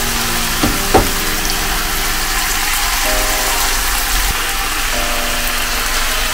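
Diced vegetables and sausage sizzling in oil in a frying pan as they are stirred with a wooden spatula, with two knocks about a second in.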